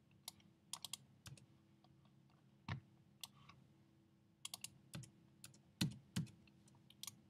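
Faint, scattered clicks of a computer keyboard and mouse, about a dozen irregular taps, over a low steady hum.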